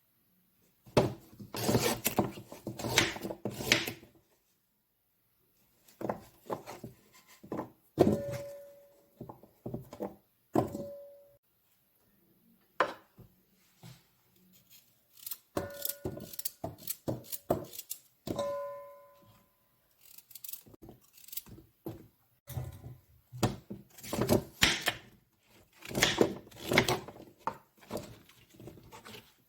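Kitchen utensils and cookware being handled: bursts of clattering and knocking, with several sharp clinks that ring briefly at a steady pitch.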